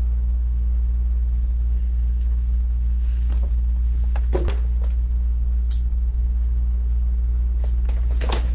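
A steady low electrical hum on the recording, with a few brief knocks and rustles from the recording device being handled, the clearest about four and a half seconds in and again near the end.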